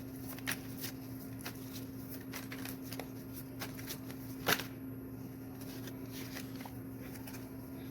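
Tarot cards being shuffled and handled by hand: a run of light card clicks and flicks, with one sharper snap about four and a half seconds in. A steady low hum runs underneath.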